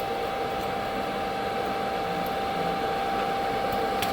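CNC router's axis drive motors running steadily with a constant high whine as the machine travels back to its home position.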